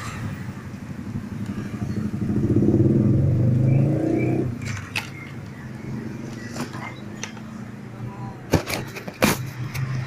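A motorcycle engine running steadily, swelling louder for a couple of seconds and dropping back about four and a half seconds in. Two sharp knocks come near the end.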